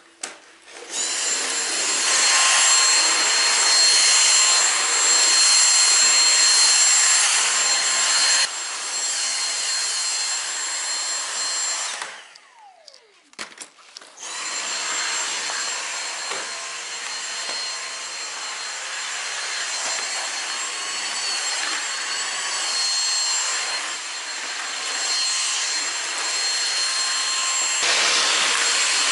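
Cordless stick vacuum cleaner running with a steady high whine over its rushing airflow. It gets quieter about eight seconds in, cuts out about twelve seconds in, and starts again about two seconds later.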